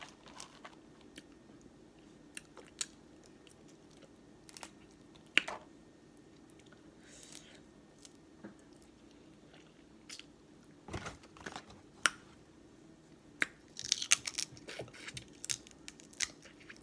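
Close-miked chewing and mouth sounds of someone eating seafood, with scattered sharp clicks and a short burst of crackling near the end, over a faint steady hum.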